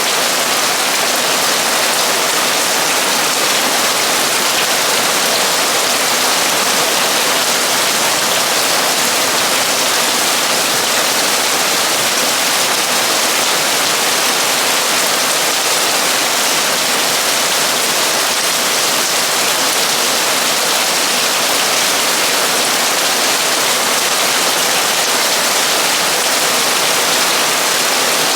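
Torrential rain drumming steadily on a metal roof, a dense, even hiss of countless drops.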